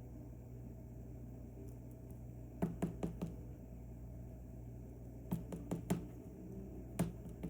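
Small sharp clicks of lock-picking tools working the pins of an Assa Twin V10 lock: a quick run of four clicks about two and a half seconds in, another run of four about five and a half seconds in, and a single click near the end. A steady low hum runs underneath.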